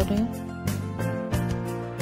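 Background instrumental music with plucked notes.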